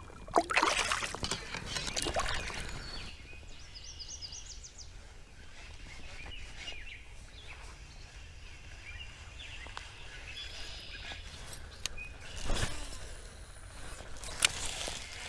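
Water splashing and sloshing for a few seconds as a northern pike is let go by hand in shallow river water, then quiet outdoor ambience with a bird chirping briefly. Two short rustles or knocks come near the end.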